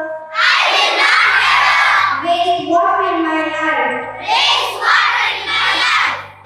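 Children singing together into a microphone, with a low instrumental accompaniment under the voices.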